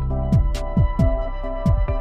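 Electronic background music with a steady beat: regular kick drums, crisp percussion hits and held synth notes.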